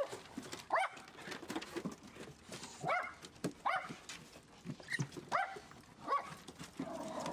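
A dog giving about six short yelps, each rising in pitch, spread across the few seconds, with light clicks of claws on a wooden deck in between.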